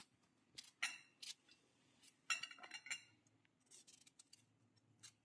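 Knife cutting raw green mango into pieces: faint, crisp cuts at an irregular pace, several close together about midway.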